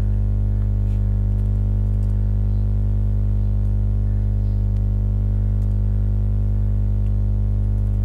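Loud, steady electrical hum with a stack of overtones, unchanging throughout, and a few faint computer keyboard clicks over it.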